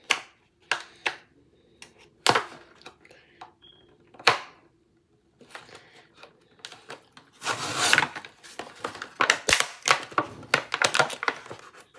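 Barbie doll box of cardboard and plastic being wrestled open by hand: scattered clicks and snaps, a short burst of tearing and crinkling about two-thirds through, then a quick run of clicks and snaps near the end.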